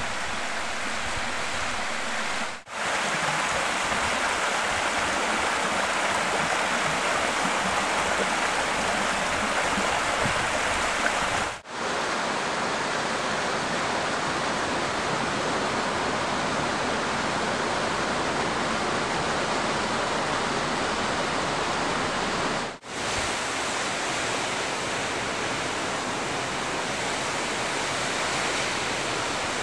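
Waterfalls pouring over sandstone, a steady rush of falling water heard close to the microphone. It drops out briefly three times, about 3, 12 and 23 seconds in, as the recording jumps from one fall to the next.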